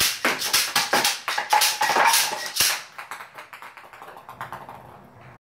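3D-printed spring-loaded ping pong ball gun firing in quick succession: about a dozen sharp plastic clacks in the first three seconds as it shoots and the balls strike the plastic bottles. Then come fainter, quicker ticks that die away as the ping pong balls bounce and settle.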